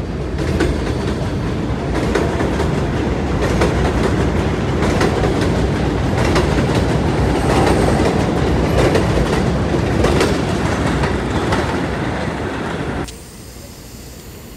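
New York City subway train of R142-family cars running along an elevated platform: a loud steady rumble with its wheels clattering over rail joints in quick irregular clicks. About thirteen seconds in it cuts off suddenly to a much quieter steady background noise.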